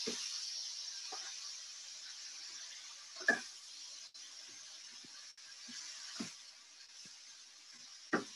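Mushrooms and vegetables sizzling in a wok, a steady hiss that slowly dies down. Metal tongs clack against the wok about five times at uneven intervals.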